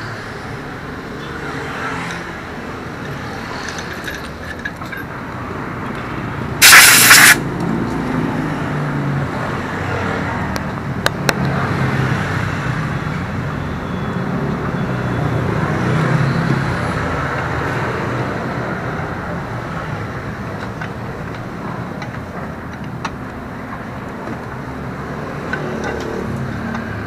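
Street traffic going past, with a low rumble that swells and fades around the middle as vehicles pass. A sharp, loud hiss about half a second long comes about seven seconds in, and there are a few light clicks.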